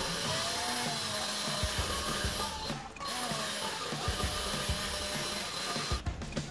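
Swiss Military 14.4 V cordless drill running in steady spells, pausing briefly about three seconds in and stopping again near the end.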